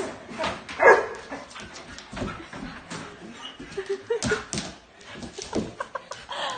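Husky-type dog whining and yipping in short bursts as it jumps and snaps at a dangled rubber toy. The loudest yelp comes about a second in, and there are sharp clicks around four seconds in.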